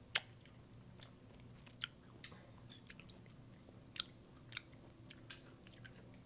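A person chewing juicy pickle: scattered wet crunches and smacks, about one or two a second, the loudest just as it begins.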